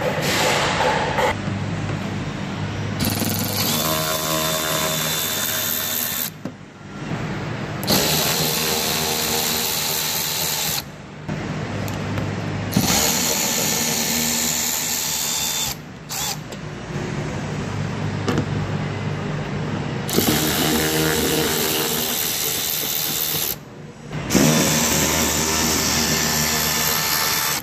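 Milwaukee cordless power tool with a socket spinning out the small fender liner bolts, in about six short runs of two to three seconds with brief pauses between them.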